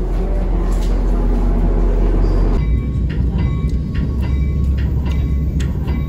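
Passenger train at a station platform: a loud, steady low rumble that changes about two and a half seconds in to a rougher rumble with a scattering of short clicks.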